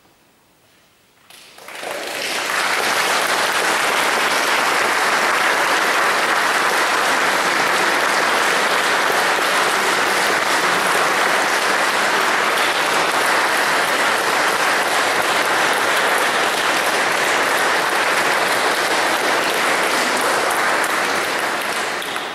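Audience applauding. It starts about a second and a half in, holds steady, and dies away near the end.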